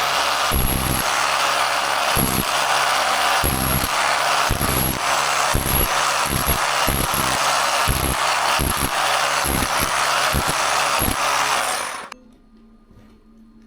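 A power tool running hard under load, with irregular low thuds through its noise, stopping abruptly about twelve seconds in.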